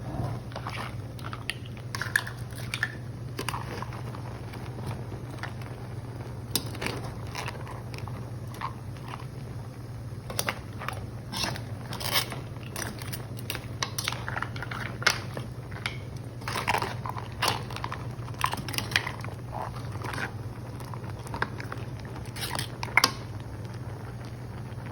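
Someone eating a seafood boil: irregular crunching and chewing with sharp clicks scattered throughout, over a steady low hum.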